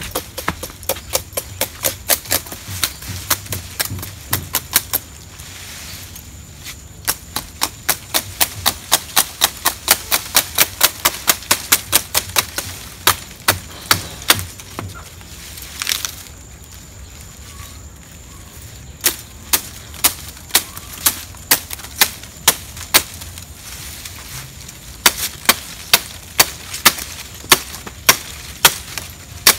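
A blade chopping palm leaves in quick, sharp strokes, about three a second, in runs of several seconds with short pauses between.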